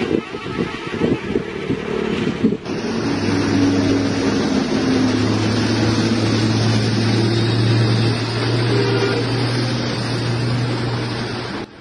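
A heavy diesel engine running steadily with a deep, even drone, starting abruptly about two and a half seconds in after a stretch of uneven vehicle noise.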